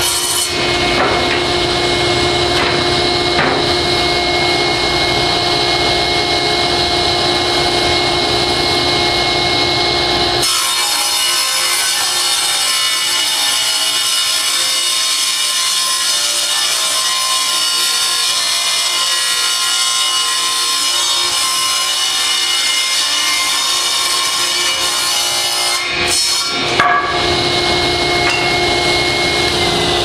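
Delta table saw ripping rough-sawn one-inch boards, the blade cutting through wood over the steady run of a dust collector. The low end of the cutting noise changes about a third of the way in. Near the end the saw's pitch starts falling as it is switched off and winds down.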